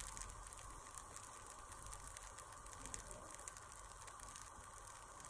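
Faint sizzling of baghrir batter cooking on one side in a hot pan, with scattered tiny pops as bubbles open into holes across its surface.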